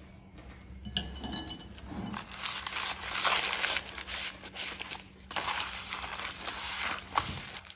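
A paper butter wrapper rubbed around the inside of a metal cake mould, a crinkling scrape in long strokes with a short break about five seconds in. Before it, about a second in, a few clinks of a spoon against a glass bowl.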